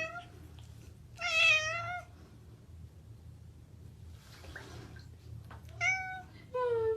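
A cat meowing three times: one long, wavering meow about a second in, then two shorter meows near the end, the last one falling in pitch.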